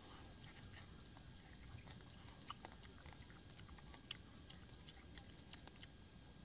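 Insect chirping, a steady high-pitched pulse repeating about six or seven times a second, with a few faint clicks over it.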